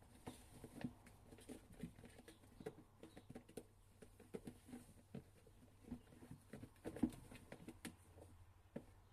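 Kittens moving about and scuffling: faint, irregular soft taps of small paws, several a second, the loudest a little past seven seconds in.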